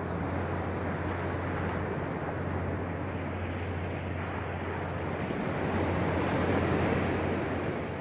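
Small sea waves breaking and washing up a sandy beach, a continuous surf wash that swells louder about six seconds in as a wave runs up, over a steady low hum.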